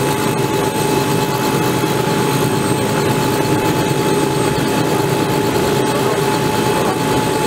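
Robinson R66 helicopter running on the ground with its main rotor turning: the Rolls-Royce RR300 turboshaft gives a steady high whine over a constant rotor and engine rush.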